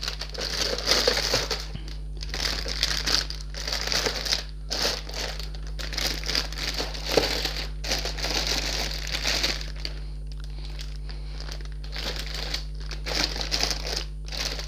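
Clear plastic bags of model-kit runners crinkling as they are handled, in irregular bursts with short pauses and a quieter stretch about two-thirds of the way through.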